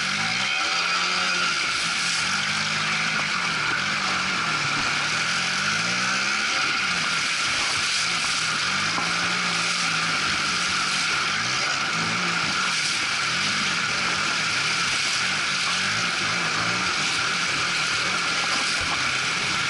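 Quad bike engine revving up and down as it fords a shallow river, under loud, steady water rushing and splashing.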